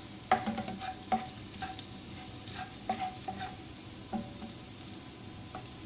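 Chopped garlic sizzling in hot oil in a non-stick wok, stirred with a metal ladle that taps and scrapes against the pan now and then.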